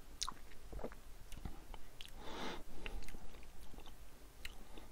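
Faint mouth sounds of a person tasting whisky: small wet lip and tongue clicks as the spirit is worked around the mouth, with a short breathy draw about two seconds in.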